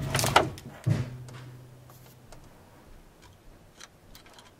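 Handling clicks and knocks on the work surface, sharpest in the first half-second and again about a second in, then a few faint ticks.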